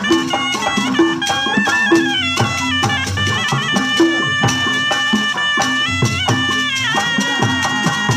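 Tarompet, a Sundanese double-reed shawm, playing a loud reedy melody that steps and slides between held notes, over kendang drums beating a steady, busy rhythm with deep pitched strokes.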